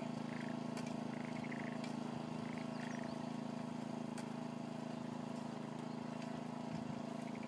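Small engine of a walk-behind rice transplanter running steadily as the machine plants seedlings through shallow water, with faint ticks over the drone. A few short high chirps sound in the first three seconds.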